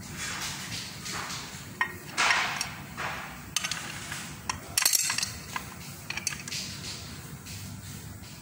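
Irregular metal clicks, clinks and scraping as a steel mounting bracket and its bolts are handled and fitted against a sprayer pump's body by hand, with the loudest knock about five seconds in.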